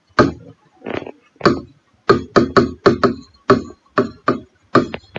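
Marker pen writing on a whiteboard: a quick series of short taps and scrapes, one per letter stroke, about fifteen in all and coming several a second from about two seconds in.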